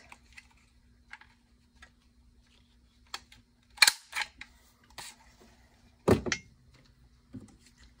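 A square craft paper punch snapping down through cardstock with one sharp click about four seconds in. Lighter paper and plastic clicks follow, with a heavier knock near six seconds.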